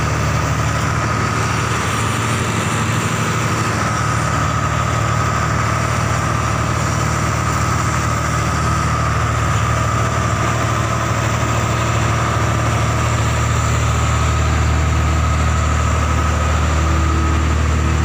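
Heavy diesel engine running steadily at idle, a low even drone with a thin steady whine above it.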